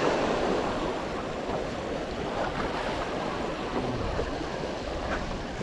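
Small ocean waves breaking and washing against the jetty's boulders, a steady rushing that eases a little after the first second.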